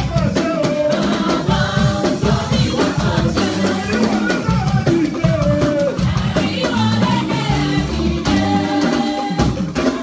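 Church praise music with a drum kit and percussion beating under voices singing.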